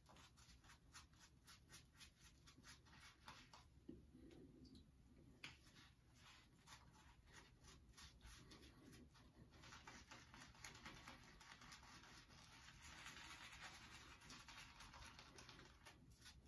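Faint, scratchy strokes of a small shaving brush scrubbing shaving-soap lather over a stubbled face, several strokes a second. The strokes run together into a steadier brushing rustle for the last several seconds. The lather is still on the dry side.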